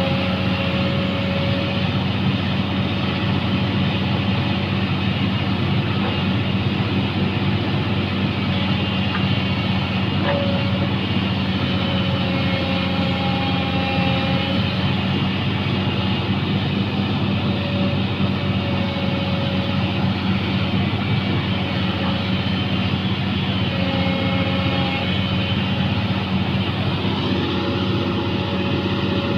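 An engine running steadily with a constant low drone, with fainter higher tones that come and go.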